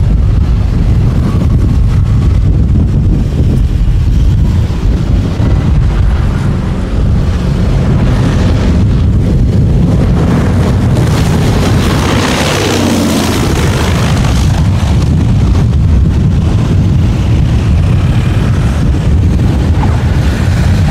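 Wind buffeting the microphone, with a twin-engine propeller plane on low approach growing louder and passing overhead a little past halfway. Its engine and propeller pitch falls as it goes by.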